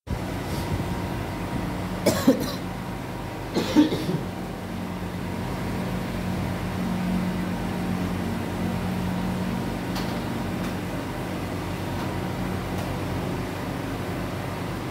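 A person coughs twice, about two seconds apart, near the start, over a steady low hum.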